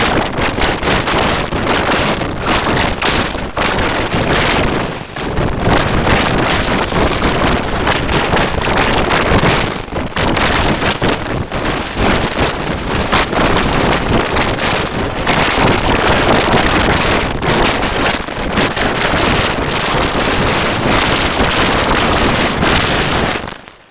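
Heavily effect-processed commercial soundtrack, distorted into a loud, rough, hiss-like roar across all pitches with no recognisable words or tune. It surges and dips every second or two, then fades out just before the end.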